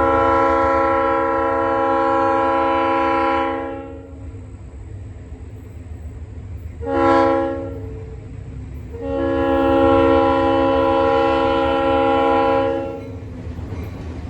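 Diesel locomotive air horn sounding a chord of several notes: a long blast, a short blast, then another long blast. The pattern is the end of the long-long-short-long grade-crossing signal. A low diesel engine rumble runs under it.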